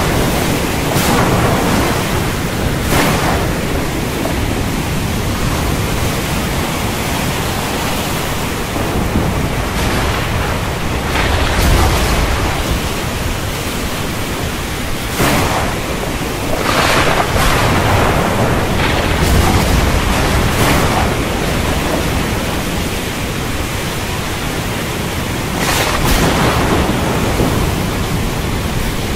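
Thunderstorm: a steady rushing noise with repeated cracks and rolling rumbles of thunder, the deepest rumbles about twelve and twenty seconds in.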